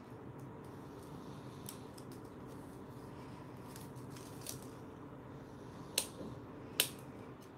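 Scissors snipping through plastic weaving strips, two sharp snips near the end, with a few fainter clicks before them.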